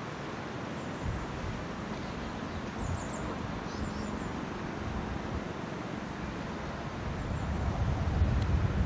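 Wind buffeting the microphone, gusting harder near the end, with a few short bird chirps about three seconds in and again near the end.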